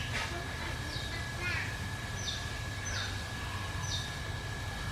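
Animal calls: a series of short, high chirps, each falling in pitch, repeating about every two-thirds of a second, over a steady thin high whine.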